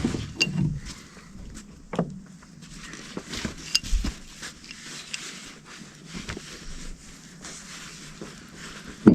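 Scattered light clicks and knocks of steel parts and tools being handled, with a sharper knock near the end.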